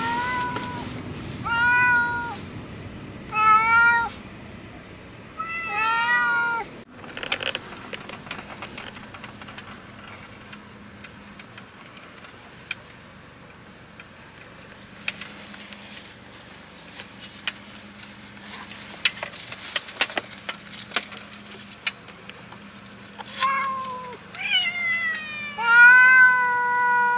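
Pet cats shut in carriers in a car, meowing loudly in protest: three long meows in the first few seconds, a quieter stretch with small clicks and rustles, then a run of several meows near the end.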